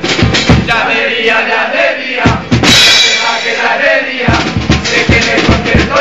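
Chirigota band music led by percussion: a bass drum (bombo) and snare drum (caja) beat a steady rhythm. The bass drum drops out for about three seconds in the middle and comes back, with a brief bright burst near the middle.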